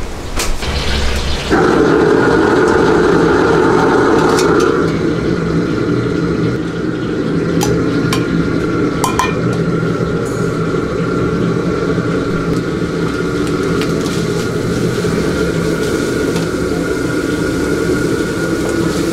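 A commercial gas wok burner runs with a steady loud rush from about one and a half seconds in, under stir-frying in the wok. A metal ladle clanks sharply against the wok a few times.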